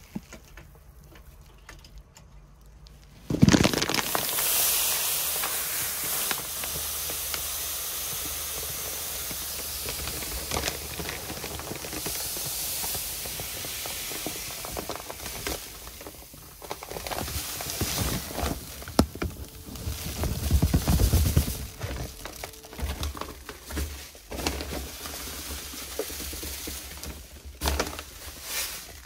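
Filter sand pouring from a 20 kg sack into a 24-inch pool sand filter tank: a steady hiss that starts suddenly about three seconds in. In the second half it gives way to uneven rustling and crackling as the plastic sack is shaken out.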